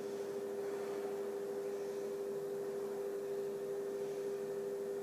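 A steady hum of two held tones over faint hiss, unchanging throughout.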